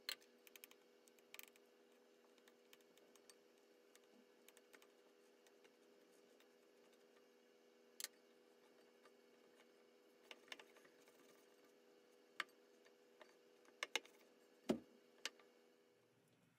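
Faint, scattered clinks and taps of a metal spoon and fingers against a glass mixing bowl while flour, egg and water are mixed into dough, over a low steady hum. The clicks come singly and irregularly, with the loudest knock near the end.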